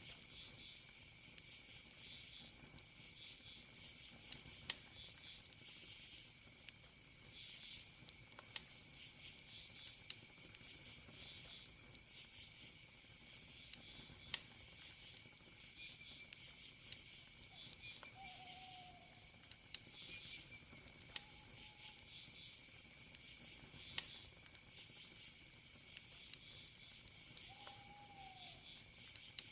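Campfire crackling, with sharp pops scattered throughout, over a steady high cricket trill and pulsing night insects. Three short calls that bend downward come near the end.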